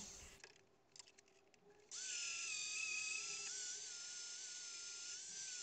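Angle grinder with a flap disc running on a steel strap hinge, smoothing its visible face. A faint, steady high whine that starts about two seconds in and wavers slightly, after a couple of faint clicks.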